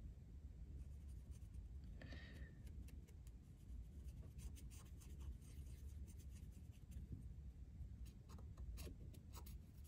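Blue felt-tip marker rubbing and scratching faintly over the steel locking lugs of a Galil rifle bolt, inking them as a cheap marking compound to show where the lugs contact the receiver. A brief squeak of the marker tip comes about two seconds in.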